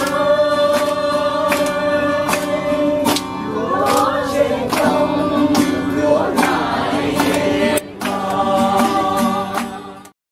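Music with singing over a steady beat. It dips briefly about three-quarters of the way through, then fades and cuts off near the end.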